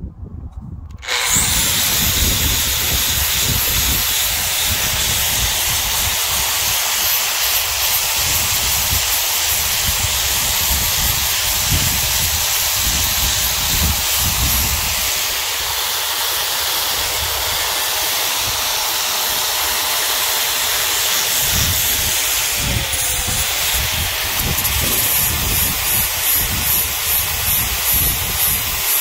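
Sandblasting cabinet running: a loud, steady hiss of compressed air and abrasive that cuts in abruptly about a second in, pulsing rapidly near the end.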